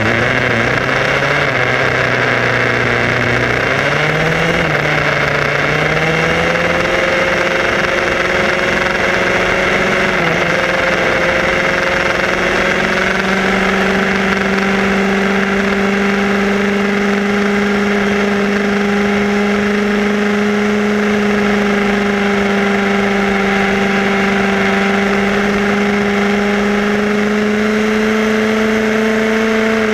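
Radio-controlled buggy's motor and drivetrain whining as it runs along a road. The pitch is low just after the start, climbs over the first few seconds as it speeds up, then holds almost steady, creeping slightly higher, over a hiss of tyre and wind noise.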